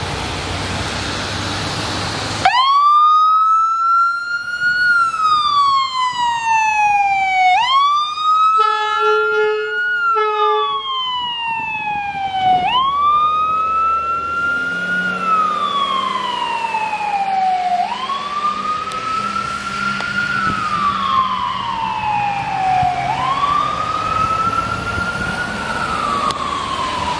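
Tri-State Fire District ambulance siren wailing, rising and falling in pitch about every five seconds, as the ambulance responds to a call. The siren starts about two and a half seconds in, after a steady rushing hiss. Two short horn blasts come about nine seconds in.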